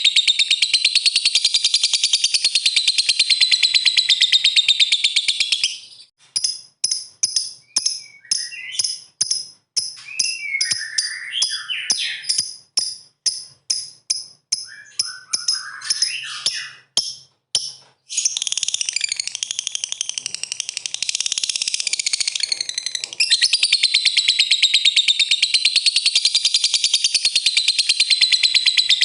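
Lovebird singing its long 'ngekek' chatter, a rapid, high-pitched continuous trill. In the middle it breaks for about twelve seconds into separate sharp chirps, roughly two a second, with a few lower squeaky glides. Then the unbroken chatter resumes.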